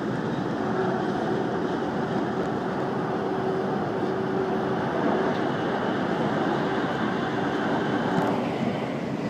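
São Paulo Metro Line 5 subway train running through a tunnel, heard from inside a passenger car: a steady rumble and rail noise with a faint steady hum. The hiss eases slightly near the end.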